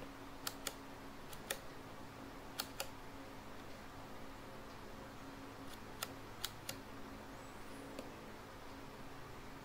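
Rolleicord's Compur leaf shutter being worked by hand: a run of short, sharp clicks, several in close pairs a fraction of a second apart.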